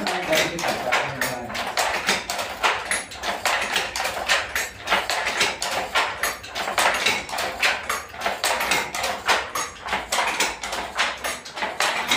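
Wooden handloom being worked to weave a saree: a quick, uneven clatter of wooden knocks and clacks as the batten is beaten and the loom's parts move.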